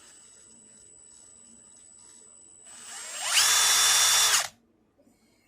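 Milwaukee M18 Fuel 2962-20 mid-torque half-inch impact wrench running free with no load. At first a faint high whine comes from the motor turning slowly on a feathered trigger. About three seconds in it winds up to full speed, runs steadily for about a second, then stops.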